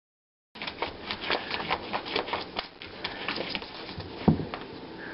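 A borador puppy's claws clicking and scrabbling on a vinyl tile floor in quick, irregular taps, thinning out after about three seconds, with one louder thump a little past four seconds.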